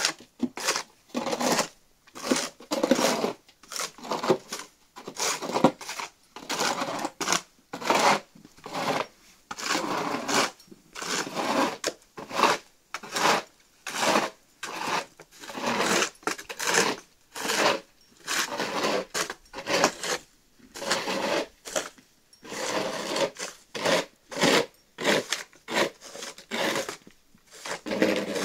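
Two plastic snow shovels pushed over a thin layer of snow on hard ground, scraping in quick repeated strokes, about one or two a second, with short gaps between.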